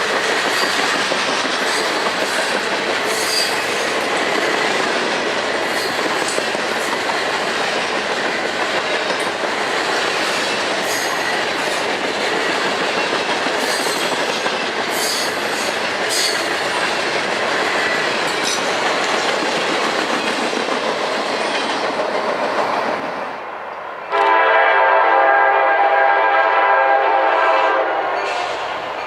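Freight train rolling past with steady rail noise and scattered wheel clicks. About 24 seconds in, a diesel locomotive's multi-tone air horn sounds loudly for about four seconds.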